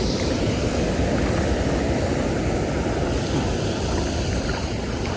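Steady low rumbling of wind buffeting the microphone, without a break.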